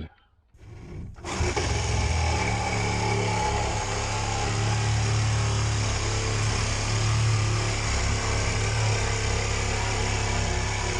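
A power tool starts about a second in and runs steadily at an even pitch.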